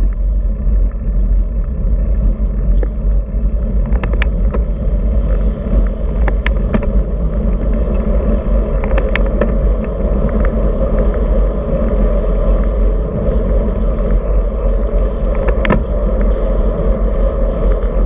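Wind buffeting the microphone of a camera mounted on a moving road bike, with tyres running on asphalt: a steady low rumble. A few short clicks from the bike come through it.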